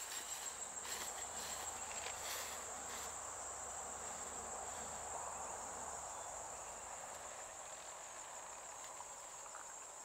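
Steady high-pitched drone of insects in a grassy field, over a soft rustling hiss. A few light rustles come in the first three seconds.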